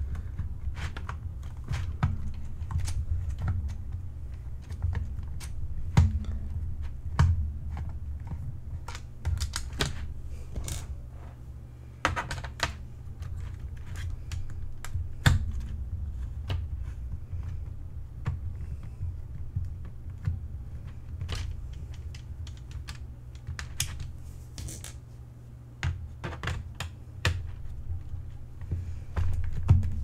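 Irregular clicks and taps of hard plastic parts and small screws being handled as a membrane keyboard's casing is taken apart by hand, over a low steady hum.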